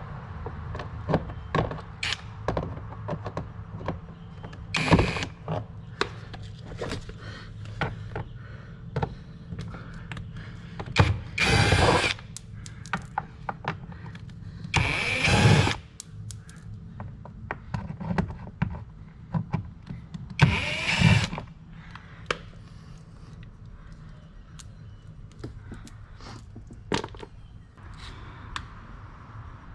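Cordless drill-driver running in short bursts of about a second, four times, backing out Torx screws from a car door panel. Tool handling clicks and taps come between the bursts.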